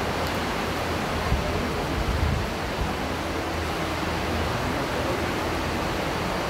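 Steady rushing hiss of room and recording noise with a low hum underneath.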